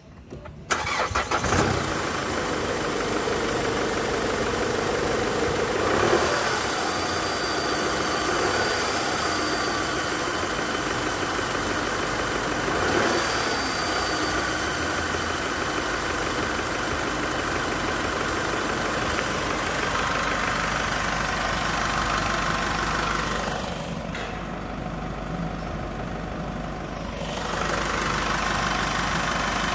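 Holden Trailblazer 2.8-litre four-cylinder turbo-diesel cranking and starting about a second in, then idling steadily under the open bonnet. Its note rises briefly twice, around six seconds and thirteen seconds in.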